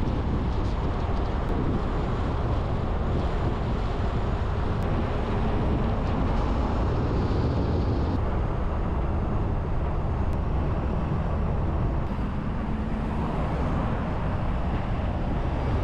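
Pickup truck driving on a road: a steady rumble of tyre and wind noise with no clear engine note. The sound changes character abruptly about eight and twelve seconds in.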